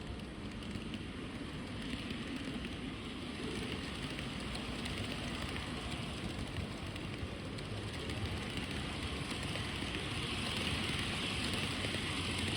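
N gauge model train running on the layout track: a steady rolling rattle and hiss of small wheels on rail that grows louder toward the end as the train comes close.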